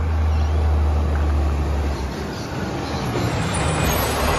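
Side-loader garbage truck's diesel engine running as the truck drives up to the kerbside bins, a low drone that eases off about halfway through as it slows.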